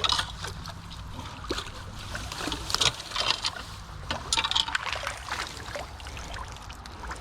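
Shallow creek water splashing and sloshing as a dip net is swept and lifted through it, in several separate bursts.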